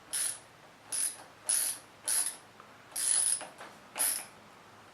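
Ratchet wrench clicking in about six short back-strokes, tightening the clamp bolt of a bar-end mirror on a motorcycle handlebar.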